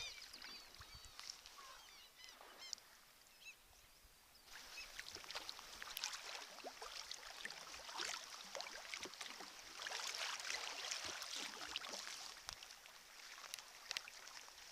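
Seabird calls, a run of short arching cries in the first few seconds, then water splashing and hissing around a sea kayak under way, with many small splashes from about four seconds in.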